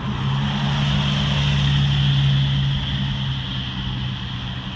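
An engine droning at a steady pitch, growing louder to a peak about two seconds in and then fading, with a hiss over it.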